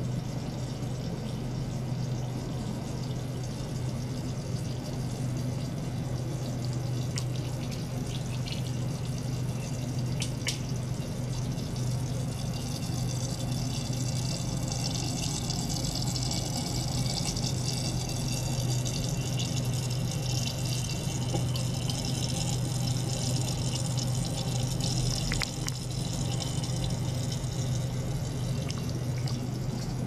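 Small liquid-circulation pump running with a steady low hum while water flows and trickles through plastic tubing into a glass beaker. The splashing hiss grows a little stronger midway, and there are a few faint ticks.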